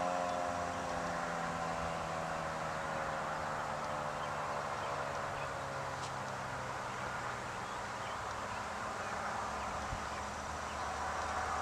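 Federal Signal 2001-130 rotating electromechanical storm siren winding down at the end of its test, its tone falling steadily and fading out over the first few seconds. A low steady hum comes in near the end.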